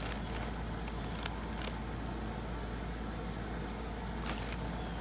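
Steady low outdoor rumble, like wind on the microphone, with a few light ticks as potting mix is handled and scooped into a raised bed.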